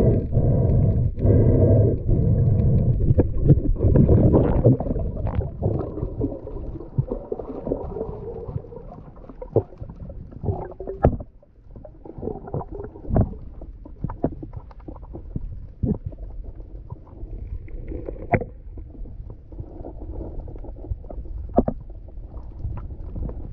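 Underwater sound picked up by a camera held below the surface: a loud, low rumble of moving water for the first five seconds or so, then quieter, with scattered sharp clicks and knocks.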